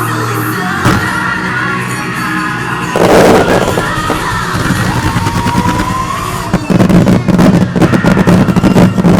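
Fireworks set to music over loudspeakers: a single bang about a second in, a bigger burst about three seconds in, then a rapid run of bangs and crackles from about two-thirds of the way through.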